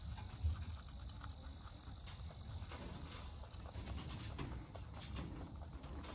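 A rabbit chewing a leafy green close to the microphone: quick, crisp crunching clicks, bite after bite. One louder knock comes about half a second in.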